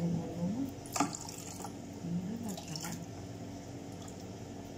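Water splashing and dripping in a sink as a tortoise is rinsed and scrubbed, with two sharper splashes about a second and about three seconds in.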